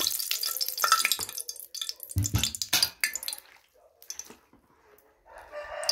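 Hot water poured from an aluminium kettle into a plastic basin of smoked beef, splashing over the meat, followed by a heavy knock a little after two seconds in. Near the end a long, held pitched call begins.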